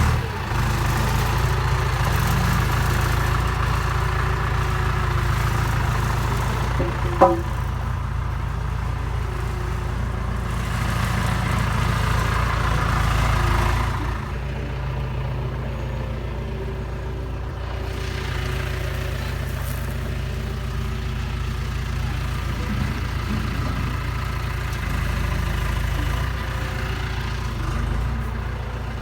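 Tractor engine running steadily, with one sharp metallic clang about seven seconds in.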